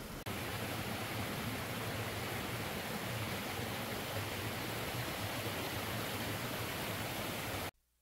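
Small waterfall and stream water rushing over rocks, a steady even rush that steps up a little a moment in and cuts off suddenly just before the end.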